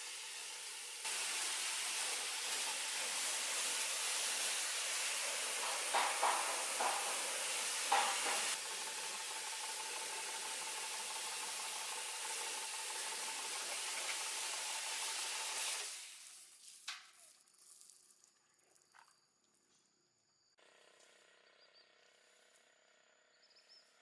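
A steady, loud hiss of a spray or jet that starts about a second in, runs for about fifteen seconds with a few brief louder spurts, then dies away, leaving a few faint clicks.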